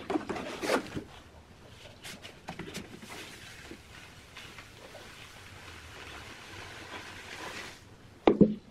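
Dry sand mix poured from a plastic bucket into a mould, a steady hiss as it runs out. It is framed by clattering knocks as the bucket is handled near the start and a few sharp knocks near the end.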